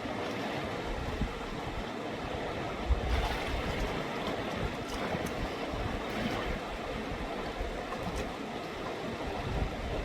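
Steady rush of a fast mountain river, with a brief low thump about three seconds in.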